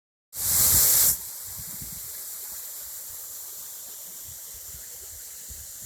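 Steady rushing hiss of a waterfall, opening with a much louder rush of noise lasting under a second.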